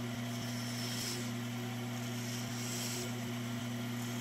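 Bandsaw running steadily with an even hum, its blade cutting a small wooden lure body, with a light hiss of the cut about a second in and again near three seconds.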